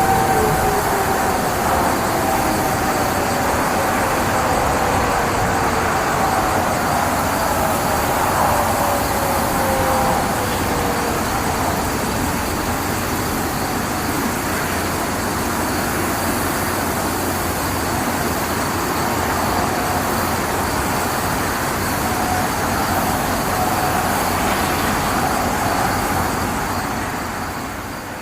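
Sentry 15V2T-B dual-tone outdoor warning siren winding down, its two tones sliding down in pitch over the first few seconds. A second falling siren tone follows around six to ten seconds in, with faint siren tones near the end. Steady road traffic noise runs underneath and is the loudest sound.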